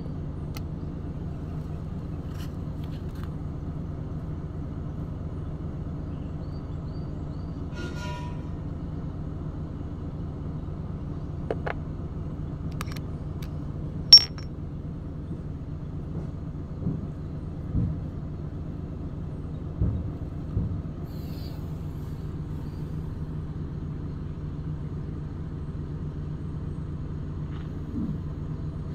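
A steady low engine drone, with a few light metal clicks and knocks from the gear pump's parts being handled; the sharpest click comes about halfway through.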